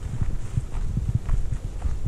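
Footsteps of a person walking on a bush track, picked up by a handheld camera that jolts with each step: a steady run of dull thuds.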